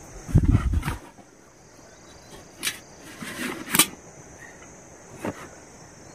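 Handling noises of camping gear on a tent floor: a loud low thump about half a second in, then several separate clicks and knocks as a small portable gas cylinder with a stove burner on top is lifted and set down.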